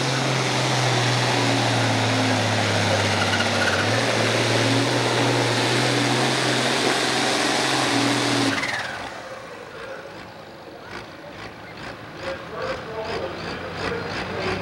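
International Harvester farm tractor's diesel engine running flat out under full load as it pulls the weight sled, a loud, steady drone. About eight and a half seconds in the engine is shut down or throttled back as the pull ends, and the sound drops away abruptly to a much quieter background with faint, regular ticks.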